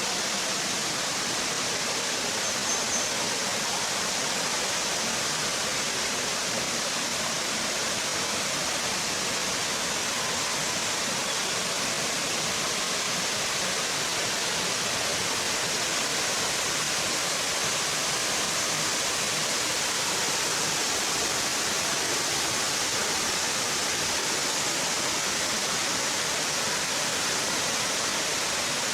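Waterfall cascading steadily, an even hiss of falling water.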